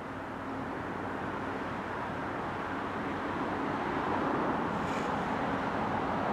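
Two CN GE ET44AC Tier 4 diesel locomotives approaching at track speed: a steady engine rumble that grows gradually louder as the train nears.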